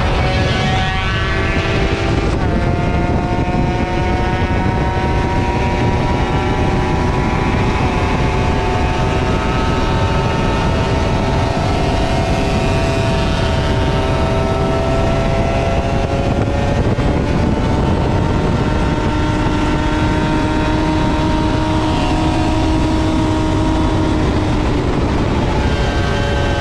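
Motorcycle engine running at highway speed under heavy wind rush on the microphone. The engine note climbs quickly near the start, drops a couple of seconds in, then holds steady with slow drifts in pitch.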